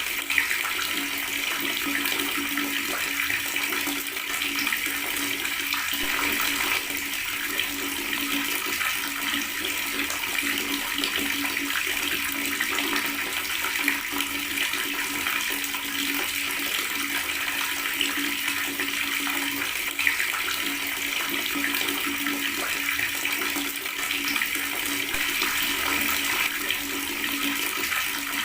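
Water running steadily from a tap and gurgling, with no breaks or changes.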